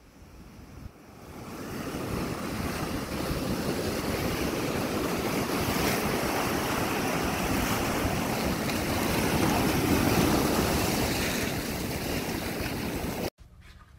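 Ocean surf breaking and washing up a sandy beach, a steady rushing that builds over the first couple of seconds and cuts off abruptly near the end.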